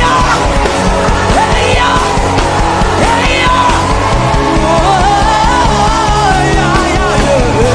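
Live gospel worship band music: steady bass and held chords under a melody line that slides and bends.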